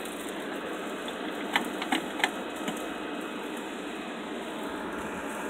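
Duck sizzling as it roasts in the oven over charcoal: a steady hiss with a few sharp crackles in the middle.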